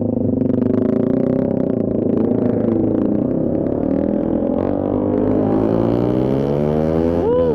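Honda PCX 160 scooter's single-cylinder engine running under way, heard with wind rush. The engine note holds steady, then climbs in pitch over the last couple of seconds as the scooter speeds up. A brief swooping sound comes near the end.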